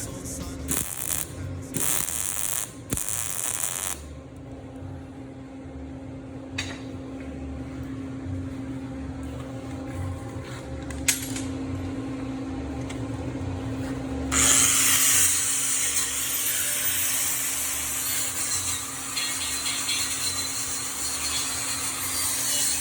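Metalworking power tool on steel: a steady low hum, a single sharp click about eleven seconds in, then from about fourteen seconds a loud, steady hissing crackle.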